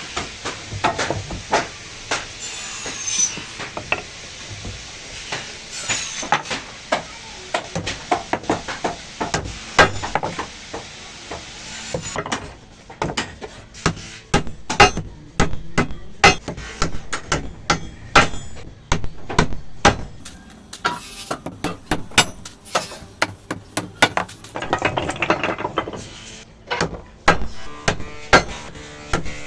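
Hammer striking repeatedly in quick, irregular taps, as a sewing machine box is put together.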